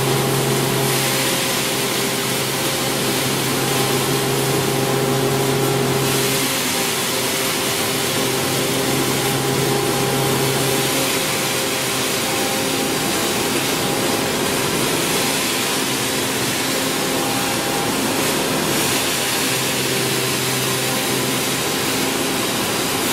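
Hammer mill crusher running steadily while crushing palm kernel shells: a constant motor and fan hum with a loud rushing hiss of material blown through its pipe and cyclone.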